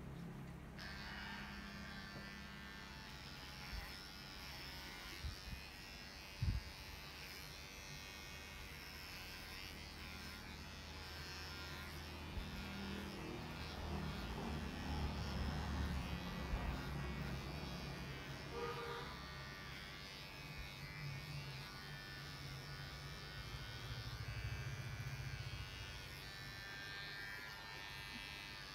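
Electric pet grooming clippers running with a steady buzz as they cut a Shih Tzu's coat. There is one sharp knock about six seconds in.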